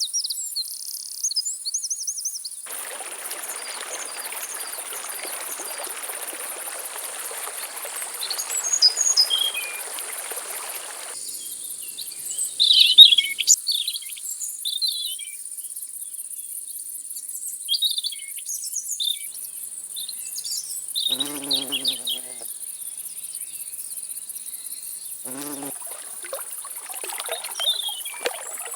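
Insects droning steadily on one high pitch, with scattered short bird chirps and calls over it. A soft hiss runs from about three seconds in to about eleven, and two short, lower bird calls come near the end.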